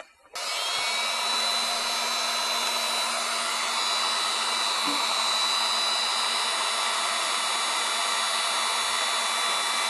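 Heat gun switching on a moment in and running steadily, its fan blowing hot air onto a dented aluminum panel to warm the metal during a dent pull.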